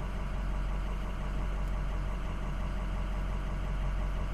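Pickup truck engine idling, a steady low hum heard from inside the cab.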